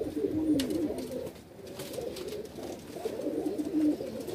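Domestic pigeons cooing, several low coos overlapping, with a brief click about half a second in.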